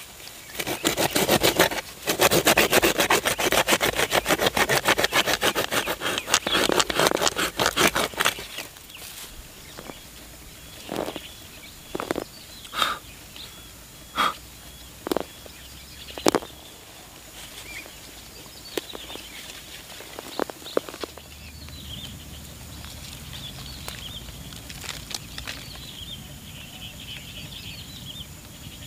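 A hoe blade chopping and scraping into soil around a small tree's roots, a fast, dense run of strikes for about eight seconds, followed by a few separate knocks as the earth is broken away. Faint chirping runs in the background, more so in the second half.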